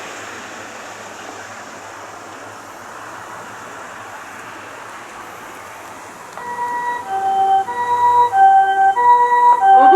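Steady hiss for the first six seconds or so, then an ambulance's harmonic siren starts up, loud. Its two chord-like tones alternate hi-lo about every two-thirds of a second.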